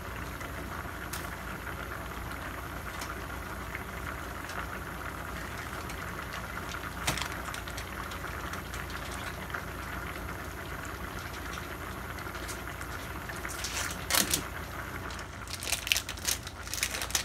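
Pot of stew simmering on a gas stove: a steady bubbling hiss over a low hum, with a couple of single clicks and a quick run of sharp clicks near the end.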